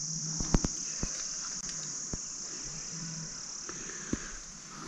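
Steady high-pitched chorus of crickets in forest grassland, with a few sharp clicks over it.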